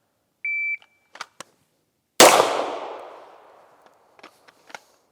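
A PACT Club III shot timer gives a short start beep, and about a second and a half later a pistol fires a single loud shot that echoes away over more than a second. A few faint clicks fall between and after.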